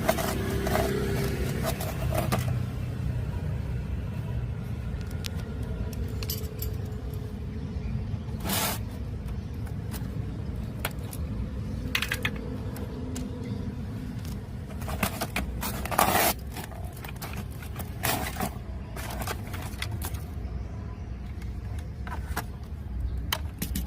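Scattered clicks, knocks and scrapes of small parts and tools being handled while a radio cassette player is worked on, over a steady low background rumble.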